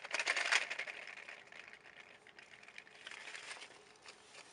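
A Jacob's ladder toy made of ribbon-hinged cardboard candy boxes clacking as its blocks flip and cascade. A quick run of rattling clicks fades after a second or two, and a second, shorter run comes about three seconds in.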